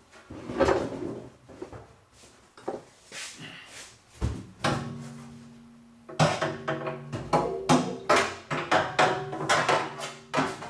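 Clunks, knocks and scrapes as a gas tank is worked up into place under a car, coming thick and fast in the second half, with a steady hum starting about halfway through.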